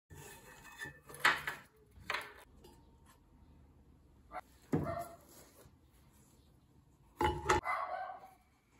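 Knocks and scrapes of MDF pottery bats being pried off and set down on the metal wheel head of an electric potter's wheel, in four separate bursts, the last one the longest.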